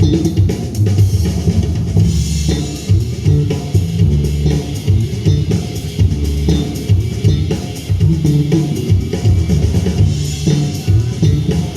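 Electric bass guitar playing a solo: a busy run of low notes that change quickly, over a drum kit keeping time.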